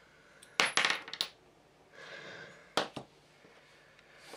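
Small metal clicks and clinks from an airbrush being handled and reassembled: a quick cluster of clicks about half a second in, a soft rustle, then one sharp click near three seconds in.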